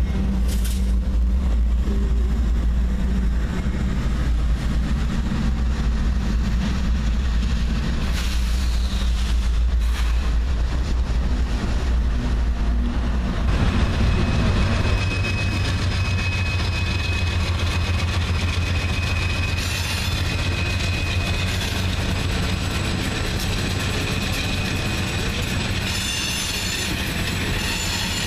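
CSX freight train passing close by, the cars rumbling and clattering over the rails. About halfway through, a string of CSX diesel locomotives rolls past, their engines a steady low drone under the wheel noise.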